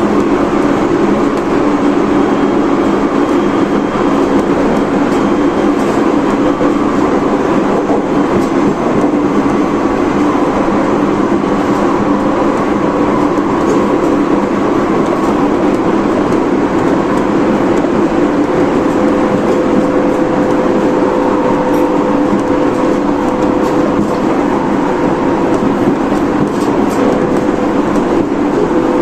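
Running noise heard aboard a Tobu 30000 series electric train with Hitachi IGBT inverter drive, travelling at a steady speed: an even rumble of wheels on rail with faint steady motor and inverter tones running through it.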